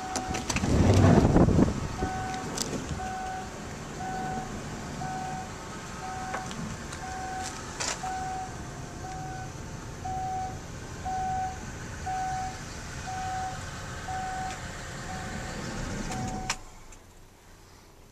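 2003 Kia Sedona minivan's dashboard warning chime, beeping steadily about twice a second. It is the alert that sounds with a door open and the key in. A loud handling thump comes about a second in, and the chime stops with a click near the end.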